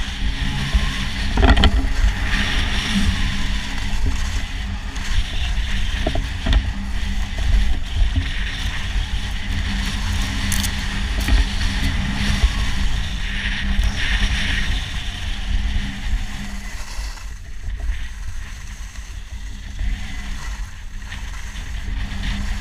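Skis sliding and scraping over packed snow on a downhill run, a hiss that swells and fades through the turns, over heavy wind rumble on the microphone. Now and then a sharp clack, the loudest about a second and a half in.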